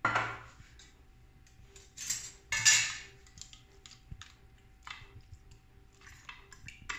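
Kitchen bowls and utensils being handled: a sharp clink at the start, two louder short noisy rushes about two to three seconds in, then light scattered clicks.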